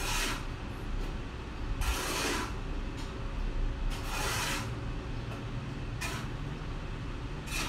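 Toshiba multifunction copier starting up after being switched back on: a low steady hum with rasping swishes that come and go about every two seconds.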